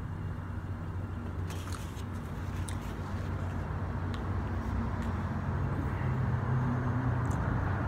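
Nearby car traffic: a steady low engine rumble that grows louder in the second half, with a few faint clicks.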